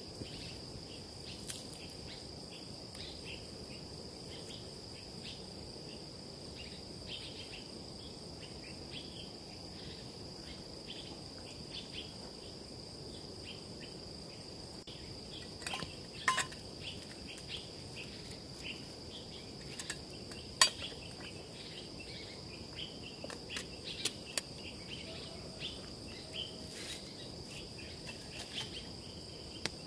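Insects chirring in a steady, high, even drone, over a wood campfire crackling with scattered small clicks and a few sharper pops and knocks, the loudest about two-thirds of the way through.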